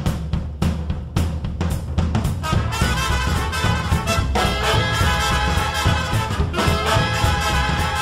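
Background music: a steady drum beat, joined about two and a half seconds in by brass horns playing over it.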